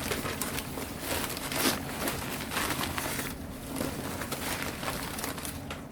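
Wrapping around plant bundles rustling and crinkling in short, irregular bursts as the bundles are handled.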